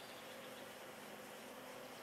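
Faint steady background hiss with a faint continuous hum, and no distinct sound.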